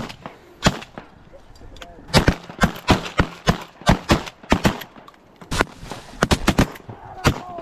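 Shotguns firing a rapid volley at waterfowl: well over a dozen sharp blasts in quick succession, some only a fraction of a second apart, from several guns.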